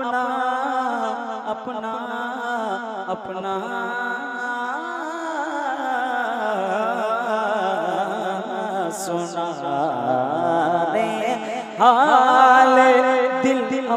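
A man singing a naat solo into a microphone, drawing out long wavering notes with no clear words. Near the end the voice steps up, louder and higher.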